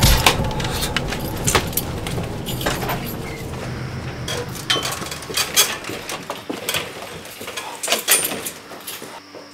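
Irregular knocks, clicks and rattles, several sharper ones near the middle and towards the end, over a low rumble that fades out about halfway through.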